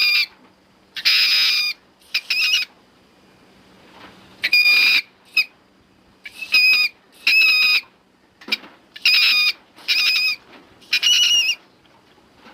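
Sound-effect calls for Leptictidium, a small extinct mammal: a series of about ten short, high-pitched squeaks, each under a second long, with quiet gaps between them.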